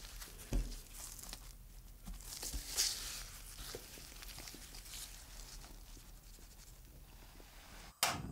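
Dry flour-and-corn-starch breading rustling and crunching as gloved hands press and turn a battered chicken breast through it, with irregular soft scrapes and pats that are loudest in the first three seconds. A short, sharp burst near the end.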